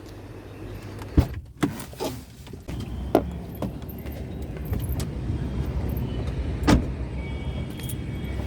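A moving vehicle's low, steady road and engine rumble that builds up after a few seconds. Sharp clicks or knocks come in a cluster in the first few seconds and once more about two-thirds through.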